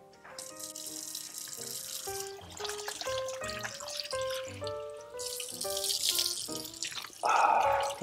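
Tap water running into a kitchen sink and splashing as a face is rinsed with it, loudest near the end. Light instrumental music with a plucked melody plays throughout.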